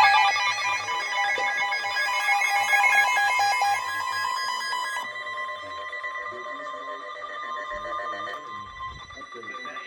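Emergency Alert System alert tones between warnings: rapid warbling digital data bursts for about five seconds, cutting off abruptly, then steadier electronic tones.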